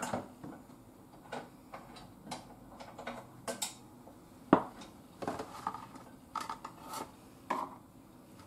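Kitchen knife knocking on a wooden cutting board while cutting food by hand: a dozen or so irregular, uneven taps, the loudest about four and a half seconds in.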